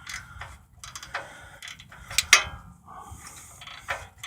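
Ratchet wrench clicking irregularly as it turns a slotted oxygen-sensor socket, unscrewing an already broken-loose O2 sensor. Two sharper clicks come about two seconds in.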